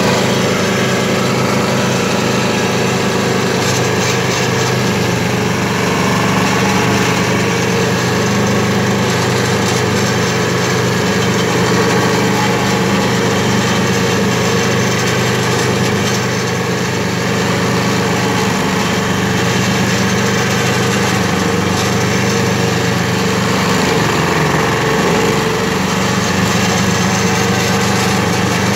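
Predator stump grinder's petrol engine running at full throttle while its cutter wheel grinds into a large sequoia stump. The engine's pitch dips briefly near the end as the wheel bites in under load.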